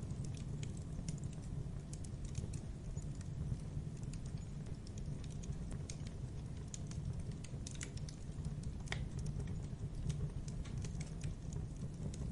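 Fire burning with a steady low rumble and constant irregular crackling and popping, one pop a little sharper about nine seconds in.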